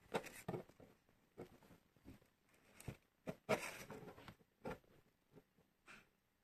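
Faint handling noise: scattered rustles, light scrapes and taps as a brass-bolstered Schrade folding knife is turned in the fingers over its leather sheath and paper, busiest a little past halfway.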